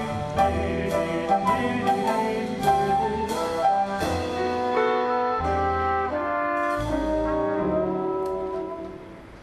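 Instrumental band music led by brass, with short accented hits through the first few seconds, then held chords that fade away near the end.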